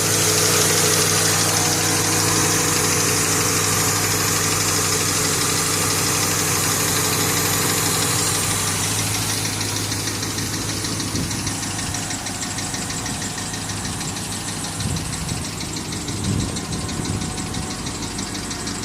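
Ford Mustang engine idling with a light knocking sound of unknown cause, which the owner describes as not really loud. The engine sound gets somewhat quieter about halfway through.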